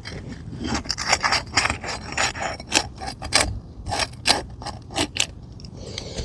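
A tool scraping in short repeated strokes, about three a second, as it is worked under an asphalt roof shingle to get beneath a roofing nail. The nail is driven tight to the roof decking, so the tool cannot get under it.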